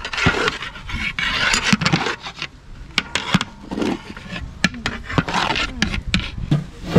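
Metal ladle scraping through cooked pulao rice in a large metal pot, knocking against the pot's sides and rim with repeated sharp clinks between the scraping strokes.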